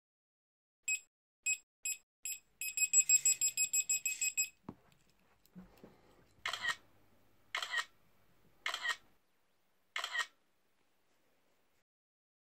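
Electronic carp bite alarm beeping: a few single bleeps, then a fast run of about six beeps a second that stops suddenly, the signal of a fish taking the bait and pulling line. Then a knock and four short rasping bursts about a second apart.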